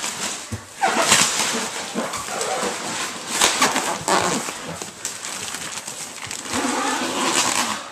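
Heavy plastic wrapping around a rolled memory foam mattress crinkling and rustling as it is gripped and shifted, with several louder rustles.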